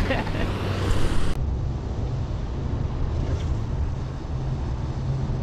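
Wind buffeting the microphone in a steady low rumble, over sea surf washing on the rocks; the hiss above it drops away a little over a second in.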